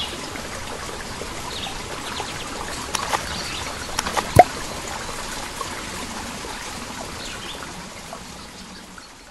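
Water trickling like a small stream, with a few faint bird chirps and a single sharp water plop about four seconds in; it fades out near the end.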